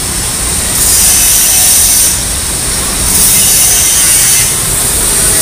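Loud machine hiss that surges and eases every one to two seconds, over a steady low rumble.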